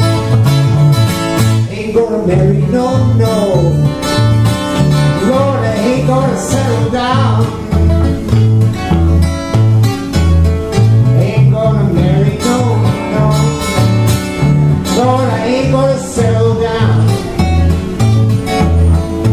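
Steel-string acoustic guitar played solo in an instrumental break of a rockabilly song: an evenly paced picked bass line under lead notes that slide and bend in pitch.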